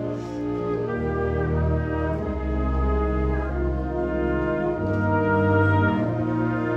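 A concert wind band plays slow, held chords, with brass prominent over low bass notes that change every second or two.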